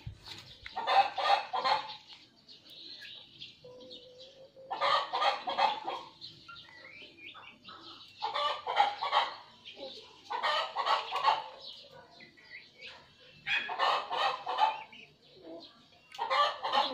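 Chicken clucking in six short bouts of rapid clucks, each about a second long, a few seconds apart.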